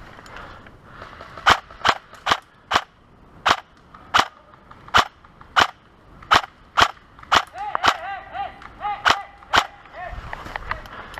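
Airsoft gun firing about a dozen single shots, each a sharp crack, at an uneven pace of roughly one every half second to second. The shooting starts about a second and a half in and stops near the end.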